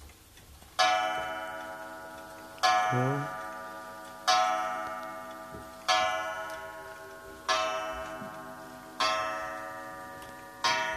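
Mid-19th-century 8-day Vienna regulator wall clock striking the hour on its gong: seven strokes about a second and a half apart, each ringing out and fading before the next. The pendulum ticks underneath.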